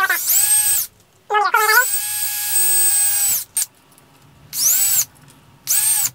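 DeWalt cordless drill run in about five short bursts, one of them about two seconds long, its whine rising as it spins up and falling as it stops each time. It is drilling quarter-inch holes through thin 0.030-inch Lexan polycarbonate sheet into a wooden backing board.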